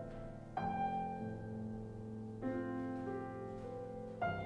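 Stuart & Sons grand piano playing slow, sustained chords: three chords struck about two seconds apart, each left ringing as it fades.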